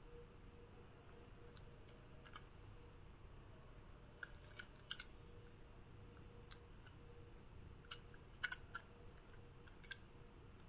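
Near silence broken by faint, scattered clicks and taps of a hard plastic toy airplane being handled and turned over in the hands, with a small cluster of clicks about four to five seconds in and another about eight to nine seconds in.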